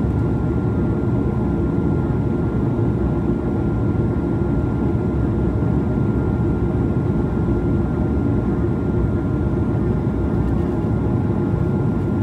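Steady cabin rumble of an Airbus A220-100 heard from inside, its Pratt & Whitney geared turbofans running, with a faint steady high whine over the low drone.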